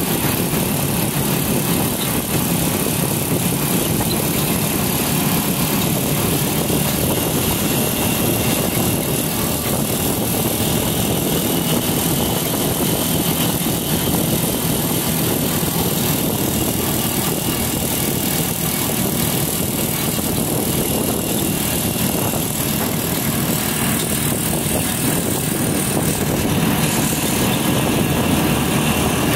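Motorcycle running at a steady cruise, heard from on board, with an even rush of road and air noise and no change in engine speed.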